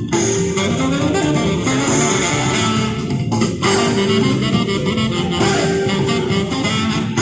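Music playing continuously, with a brief break about three and a half seconds in.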